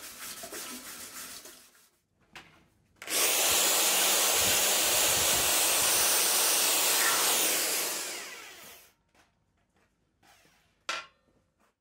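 A Bosch electric drill spins a wire cup brush against a bare steel fuse and relay holder, stripping it back to clean metal. It makes a loud, even whirr that starts suddenly about three seconds in and lasts about five seconds before winding down. Before that, a tap runs into a steel sink while the part is scrubbed by hand, and a single sharp click comes near the end.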